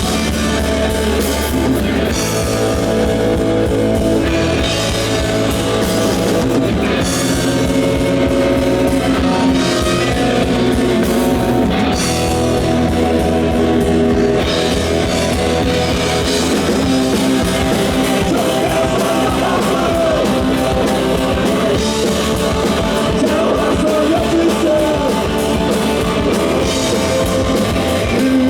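Rock band playing: distorted electric guitars, bass and a drum kit, with a singing voice coming in over the band in the second half.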